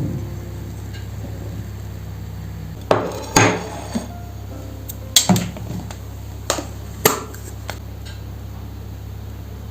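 Kitchen containers and dishes being handled and set down on a hard surface: about six separate knocks and clatters in two clusters, over a steady low hum.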